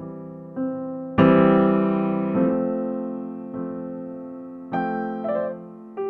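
Background music: slow, gentle piano, chords struck every second or so and left to ring out and fade, the loudest chord about a second in.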